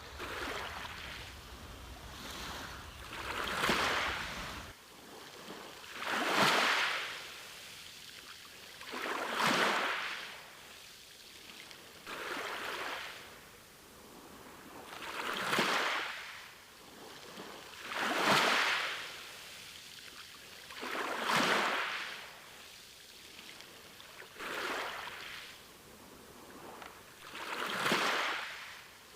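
Sea waves breaking and washing in on a shore, a surge of surf about every three seconds that swells and fades away.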